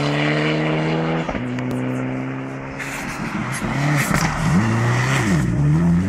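Rally car engine held at steady high revs, with a brief drop about a second in, then revved up and down several times in quick swings over the second half.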